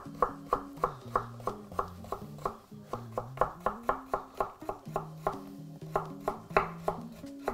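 Chef's knife dicing a carrot on a wooden cutting board: a quick, even run of sharp knocks, about three or four a second. Soft background music with held low notes plays underneath.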